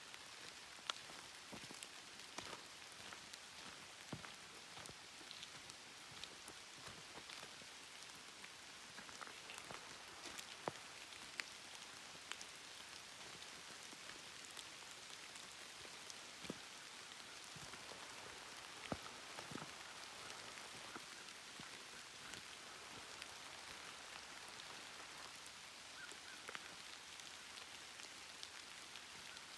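Steady rain falling in woodland: a soft even hiss with many separate drops heard as scattered sharp ticks, a few of them louder.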